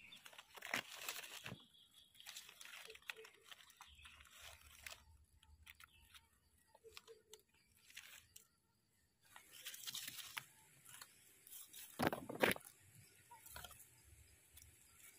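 Crunching and rustling of dry leaf litter and soil as gloved hands dig out and pull up a wild mushroom from the forest floor. The rustles come in short, scattered bursts, with the loudest crunching about twelve seconds in.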